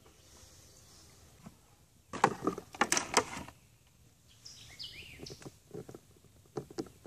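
Handling noise: a burst of rustling and sharp clicks about two seconds in as the angler handles his gear by the chair, then lighter scattered clicks. A few short, high, falling chirps like a bird come in the middle.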